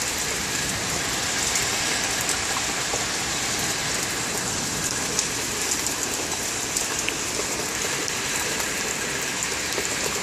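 Heavy rain pouring steadily, a dense even hiss with many sharp drops ticking close by.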